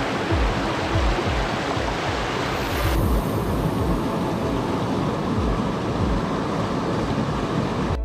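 Creek water rushing over boulders in small cascades, a steady hiss with background music and a low pulsing beat underneath. About three seconds in, the bright top of the water sound falls away and it turns softer.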